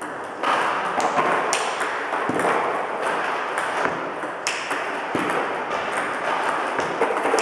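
Celluloid table tennis balls clicking off the table and the bats in quick succession during a multiball drill: the coach feeds ball after ball and the player returns them with backhand and forehand strokes.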